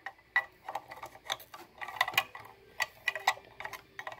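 Plastic toy playground swing clicking on its pivots as it is swung back and forth by hand with a toy figure on the seat, about two light clicks a second.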